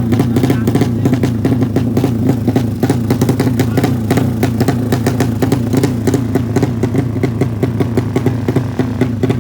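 Motorcycle engine running steadily, with a fast, even pulsing exhaust note.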